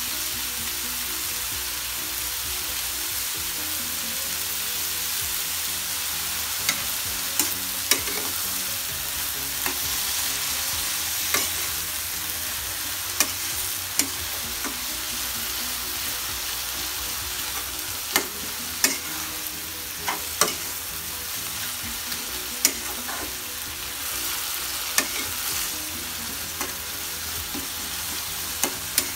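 Small shrimp and red amaranth leaves frying in a metal wok with a steady sizzle. A metal spatula stirs them, now and then scraping or striking the pan in sharp, irregular clicks.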